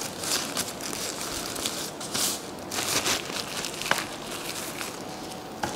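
Paper and packaging crinkling and rustling in the hands in a series of short bursts as a product manual and its wrapping are handled.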